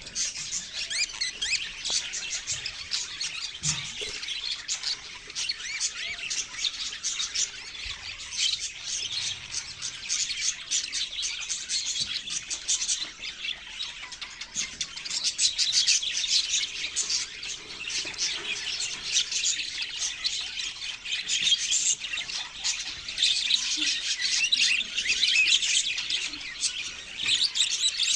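A group of budgerigars chirping continuously, many short calls overlapping.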